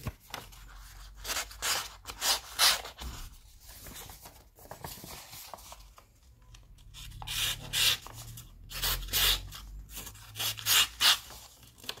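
Victorinox Huntsman pocketknife blade drawn across a wetted fine sharpening stone in a series of short scraping strokes, the finishing passes of the sharpening. The strokes are irregular, with a quieter stretch in the middle.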